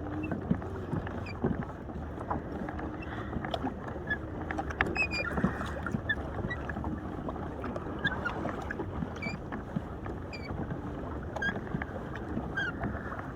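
Ocean water lapping and slapping against the hull of a drifting fishing kayak in a swell, with many small clicks and knocks scattered through it.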